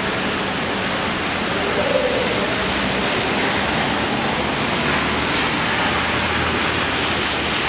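Steady heavy rain falling on a flooded road, an even hiss. A car's tyres swish through the standing water in the second half.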